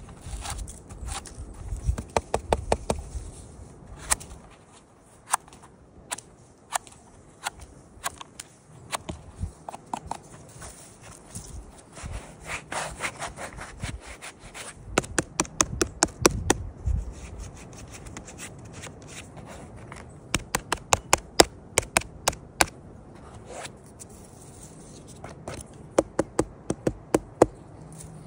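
Hands cleaning a freshly dug porcini (king bolete): rustling handling noise with repeated quick runs of sharp scratching clicks as soil and duff are scraped off the stem.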